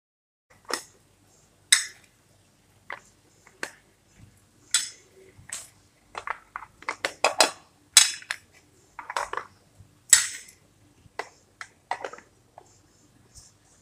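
Small plastic spice containers and their lids being handled: irregular clicks, taps and knocks as lids are lifted, set down and pressed back on, with a quick run of clicks about six to eight seconds in.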